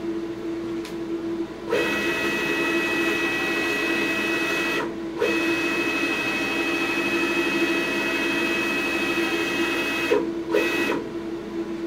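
Hybrid servo motor driving the Grizzly G4003G lathe's Z-axis ball screw through a belt, whining steadily as it traverses the carriage at about 150 inches per minute. It starts about two seconds in, pauses briefly around five seconds as it reverses direction, and stops near ten seconds after one short final move. A steady hum from the control cabinet's vent fan runs underneath throughout.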